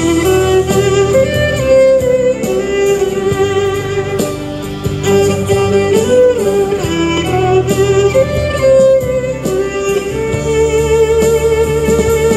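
Solo violin playing a pop melody in long held notes with vibrato, over an accompaniment with guitar and bass.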